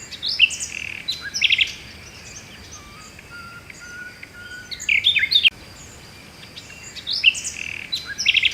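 Small birds chirping and singing in three short bouts of quick, high chirps, over a faint steady hiss.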